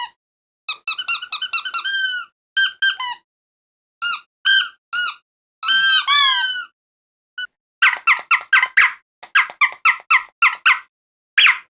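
Squeaky dog toy squeezed over and over: groups of high squeaks, some drawn out and gliding in pitch, with short pauses between, then a quicker run of short squeaks, about four a second, in the second half.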